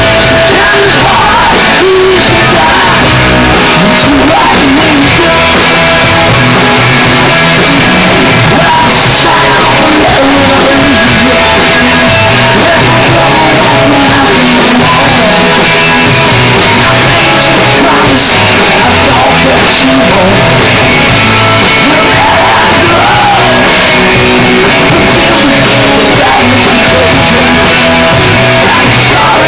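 Live rock band playing loud through a club PA, with electric guitars, drums and a lead singer, recorded close to the stage.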